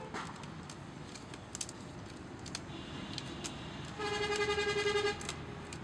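A vehicle horn honks once, about four seconds in, a single buzzy blast lasting about a second. Scattered light clicks run under it.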